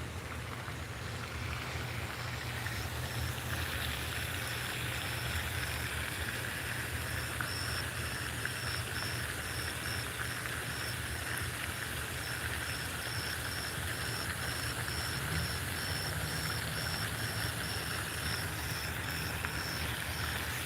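Outdoor ambience by a pond: a steady low rumble and hiss, with a high, regular chirping a few times a second that starts a few seconds in and keeps going.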